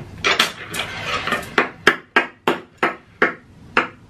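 Chopsticks clattering, then a quick run of sharp clicks, about three a second, that stops shortly before the end.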